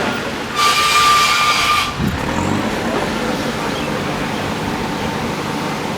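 Heavy diesel machinery running steadily. About half a second in comes a loud hiss with a whistling tone that lasts just over a second, then a low thud.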